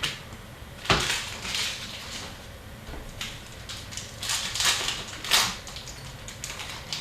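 Hockey trading cards being handled and flipped through: a run of short rustles and light slides, with a sharp knock about a second in.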